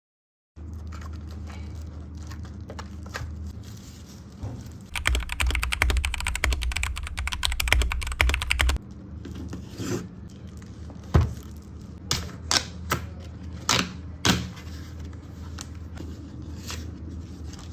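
Clicking and tapping over a steady low hum: a fast, even run of clicks for about four seconds from about five seconds in, then a handful of separate louder clicks.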